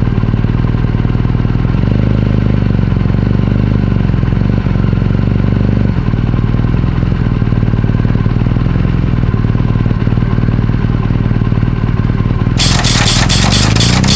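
Motorcycle engine running steadily at low revs, its pitch shifting slightly a couple of times. About 12.5 seconds in, electronic music with a steady beat comes in over it.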